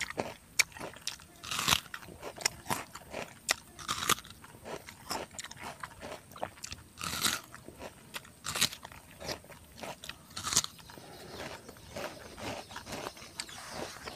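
Close-up eating sounds: crisp bites into a water guava (jambu air), with loud crunches every two or three seconds and chewing between.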